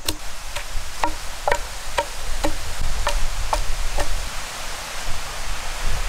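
Wooden pestle pounding ginger and garlic in a stone mortar, regular strikes about two a second that stop about four seconds in. A steady hiss runs underneath.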